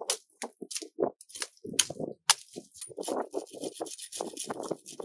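A machete hacking at red mangrove wood: a string of sharp, separate strikes over the first couple of seconds. From about three seconds in, the blade scrapes and shaves along a cut mangrove branch, a denser rasping with irregular knocks.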